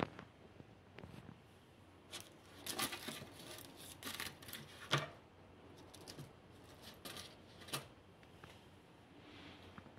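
Fingers handling soft roasted red pepper halves on a dark metal oven plate: faint, irregular taps and rustles, with a sharper click about five seconds in.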